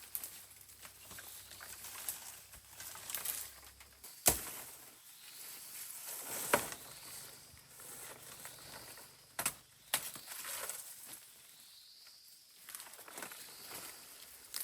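Close handling noises: light rustling with a few sharp knocks, the loudest about four seconds in and another near seven seconds, and two smaller clicks near ten seconds.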